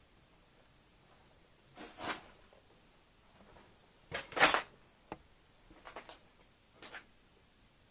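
Scattered short scrapes and rustles of junk being brushed and shifted underfoot and by hand in a cramped storeroom. The loudest comes about four and a half seconds in, followed by a sharp click just after five seconds, with a few fainter rustles later.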